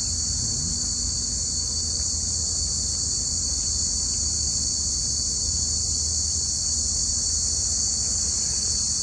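A steady, high-pitched chorus of insects in the park's trees, with a low rumble underneath.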